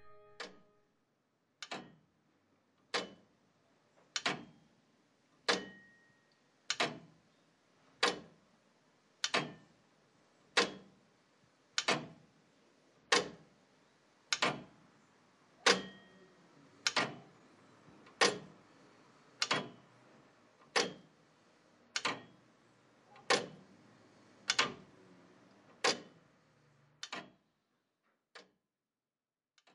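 A slow, even ticking: single sharp ticks about one every 1.3 seconds, some twenty in all, growing fainter near the end and stopping.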